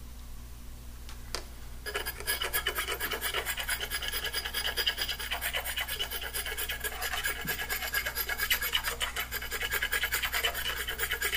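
Knife blade scraping the burnt composition off a freshly soldered self-soldering-sleeve wire splice, in rapid, even back-and-forth strokes that start about two seconds in.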